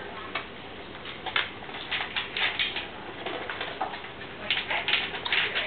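A dog and kitten eating dry food: an irregular run of short crunches and clicks at the bowl, a few a second, coming thicker near the end.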